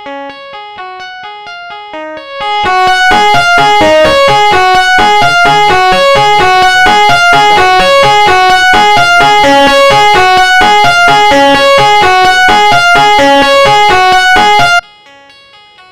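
Electric guitar recording playing a repeating single-note riff through a distortion effect. It is quieter and cleaner for the first couple of seconds, then turns loud and heavily saturated with a dense, fizzy top end. It cuts off abruptly about a second before the end.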